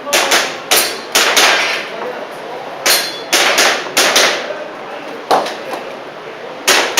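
Airsoft pistol firing about a dozen shots in quick strings of two to four, with short pauses between strings, each shot a sharp crack with a brief ring.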